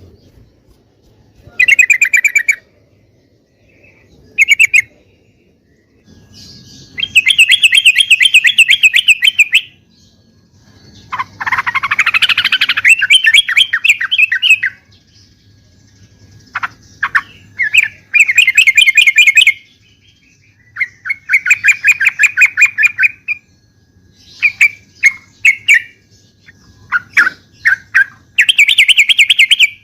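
Yellow-vented bulbul (trucuk) singing: repeated loud phrases of rapid, bubbly chattering, each one to three seconds long with short pauses between them.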